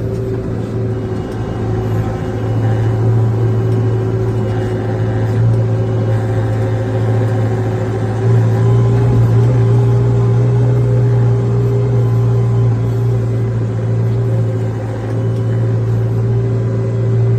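Farm tractor engine running steadily under load while pushing up a silage pile, a low drone with a steady whine above it. It pulls harder about two seconds in and again about eight seconds in.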